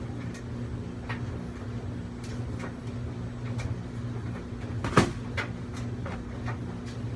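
Steady hum of drying fans and a water vacuum running, with scattered light clicks and one sharp knock about five seconds in.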